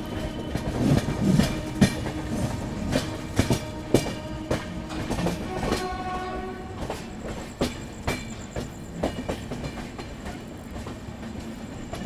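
Train wheels clattering over rail joints in irregular clacks, with a short horn-like tone about six seconds in.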